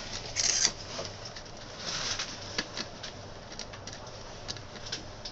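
Hands fitting washers and a screw to a monitor mount: scattered small clicks and rustling, with a short scraping hiss about half a second in.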